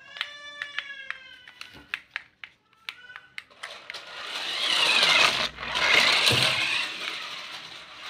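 Electric drive motors and gearbox of an RC mecha tank toy whirring as it drives fast across a tiled floor, the whine rising and falling with speed, starting about three and a half seconds in. Before that, a short pitched tone and a few light clicks.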